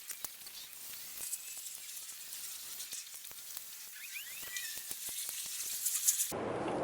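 Scattered light clicks and taps of the window switch and door panel parts being handled and fitted back, over a steady hiss. Near the end the background changes abruptly to a louder, fuller noise.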